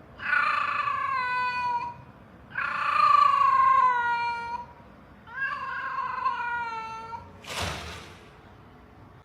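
A cat giving three long, drawn-out meows, each about two seconds long and dropping slightly in pitch at the end, followed by a short burst of noise.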